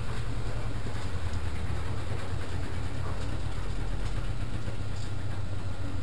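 Front-loading washing machine running a spin, a steady low rumble with a fast throb.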